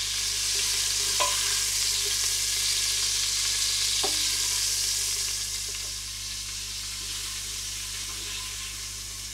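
Beef chunks searing in hot olive oil in a stainless pressure cooker: a steady sizzle that eases off a little after about five seconds, with two light knocks about one and four seconds in.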